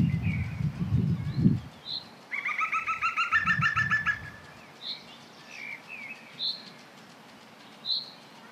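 Small songbirds singing: a fast run of repeated chirps lasting about a second and a half, and a single high call note repeated every second or two. A low muffled rumble is heard in the first second and a half and again briefly a little later.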